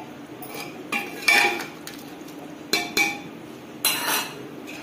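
A steel ladle stirring curry in an aluminium pressure cooker, knocking and scraping against the pot's side with about five sharp metallic clinks.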